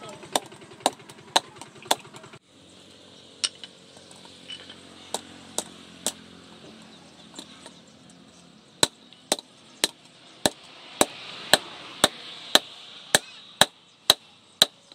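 Hand hammer striking a red-hot steel ring, cut from a bearing's inner race, on a post anvil. A steady run of sharp blows about two a second is followed by a few scattered strikes, then another steady run of blows about two a second near the end.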